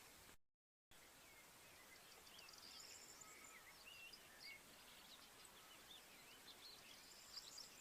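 Faint birdsong: several small birds chirping and trilling in quick, high, twisting notes over a soft outdoor hiss, with a brief dead-silent gap just after the start.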